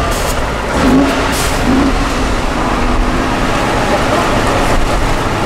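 Tatra 813 8x8 truck's diesel engine pulling hard under throttle through deep mud, a steady heavy engine note.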